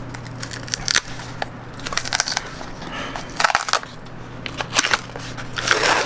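Cardboard and plastic packaging being handled and pulled open: irregular crackling and crunching in several short bursts, over a low steady hum.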